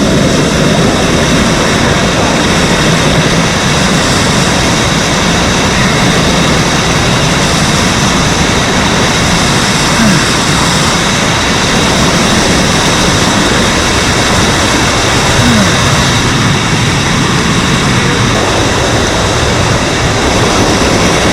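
Rushing water of a mountain stream's waterfall and cascade, a loud, steady rush with no let-up.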